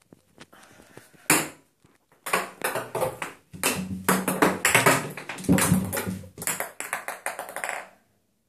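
Ping pong ball bouncing and rolling around an empty bathtub as cats bat at it: one sharp tap about a second in, then a long run of quick rattling taps against the tub that stops near the end.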